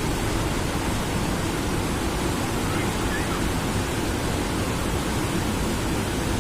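Floodwater of a river in flash flood rushing past as it overflows its banks, a steady, unbroken rush of water.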